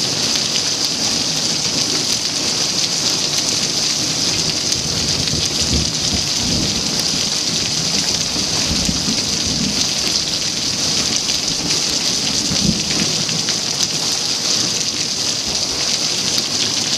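Heavy rain hissing steadily on a concrete patio and a swimming pool. Low thunder rumbles through the middle, with a short deeper burst a little before the end.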